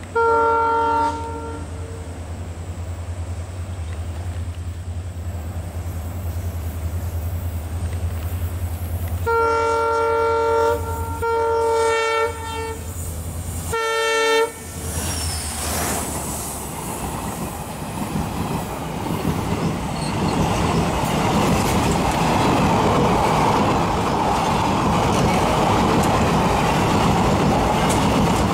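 WDP-4D diesel-electric locomotive (EMD two-stroke diesel) approaching with its horn sounding four blasts over the low drone of its engine: one about a second long at the start, then three shorter ones close together about ten seconds in. Just after the last blast the locomotive passes, and a loud, steady rolling noise from the passenger coaches' wheels follows as they run by.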